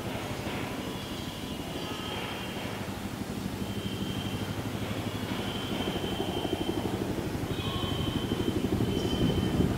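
Bell 212 helicopter's two-bladed main rotor beating in a fast, steady pulse with turbine engine noise, growing louder as the helicopter approaches.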